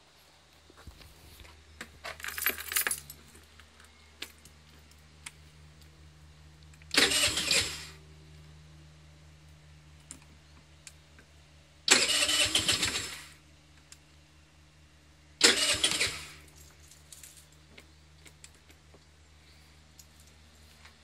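Keys rattling, then a 50cc scooter's electric starter cranking the engine in three short bursts of about a second each. Each burst dies away without the engine running on.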